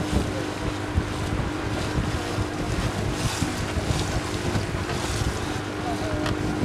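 A river boat's motor running steadily with a constant hum, under wind buffeting the microphone and water rushing past the hull.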